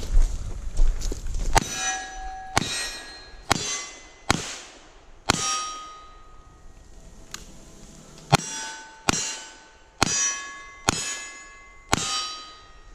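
Revolver shots at steel targets, each sharp crack followed by the steel plate ringing as it is hit. Five shots come about a second apart, then after a pause of about three seconds five more, typical of emptying one five-shot revolver and then switching to a second.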